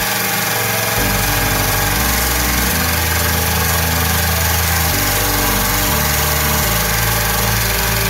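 Handheld rotary tool with a flap-wheel sanding drum running at high speed, its steady motor whine mixed with the hiss of the abrasive grinding into a truck bed's bedliner.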